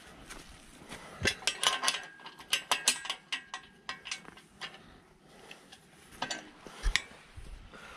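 Adjustable wrench clinking and clicking against a nut and the steel frame of an engine hoist as its bolts are tightened by hand, a quick run of metal clicks early on then a few more, with one dull knock near the end.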